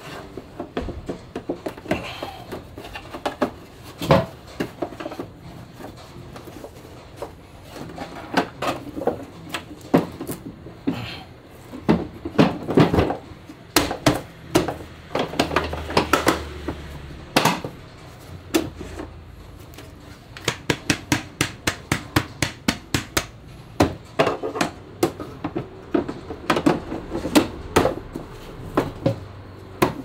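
Plastic parts of a shop dust extractor being handled, fitted and pressed into place: irregular knocks, clicks and rubbing, with runs of quick clicks near the middle and through the second half.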